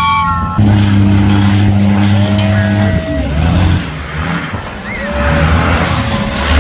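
Heavy diesel trucks running as they drive past on sand. A steady low-pitched drone lasts about two seconds near the start and cuts off sharply, followed by uneven engine noise.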